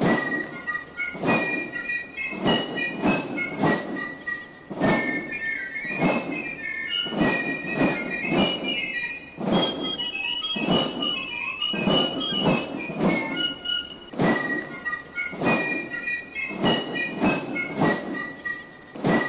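Background music with a steady percussive beat and a high melody of short stepping notes.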